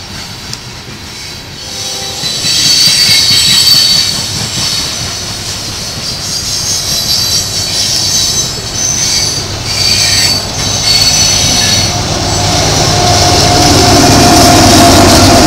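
Union Pacific coal hopper cars rolling past at close range, their steel wheels squealing in high tones over a steady rumble of wheels on rail. A few seconds before the end, a Union Pacific diesel locomotive passes, and its engine noise becomes the loudest sound.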